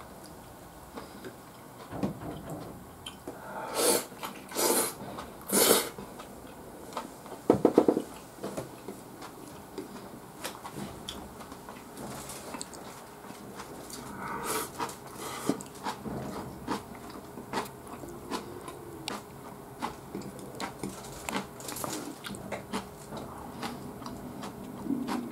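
Close-up eating sounds: chewing and mouth noises with light clicks of chopsticks and dishes. Three short louder noisy bursts come about four to six seconds in, and a brief buzzy one near eight seconds.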